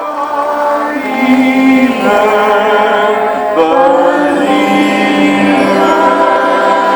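Music with long held, wordless sung notes that change pitch every second or so over a steady low drone.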